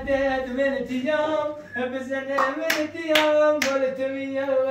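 A voice singing a simple tune in long held notes, with a few sharp hand claps through the middle.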